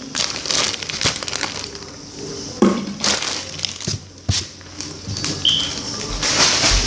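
Crinkling and rustling handling noises, with a few sharp knocks and a brief high squeak about five and a half seconds in.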